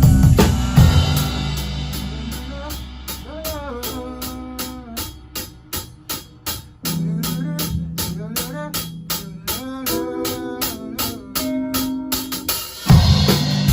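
Live rock band playing a pop song: the band drops to a quiet breakdown of organ-toned keyboard chords over a steady light tick about four times a second, then drums, bass and guitar come back in near the end.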